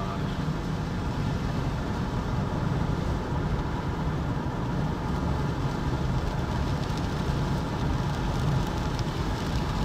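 Steady low rumble of a vehicle with rain, heard from inside the car. Scattered sharp ticks of drops striking the car begin near the end.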